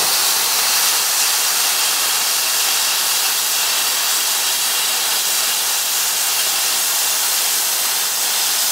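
Everlast Hatchet 60 plasma cutter, set to 50 amps with a 1 mm tip, cutting through 3/8-inch aluminum plate: the plasma arc hisses steadily.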